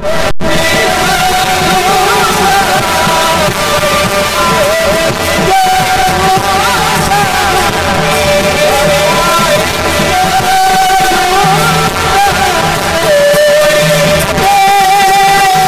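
Marathi devotional kirtan music: a wavering sung melody line over steady sustained instrumental tones, loud and continuous.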